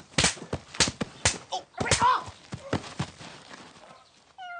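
A rapid run of hard open-hand slaps to a face, about six in the first three seconds, each a sharp crack.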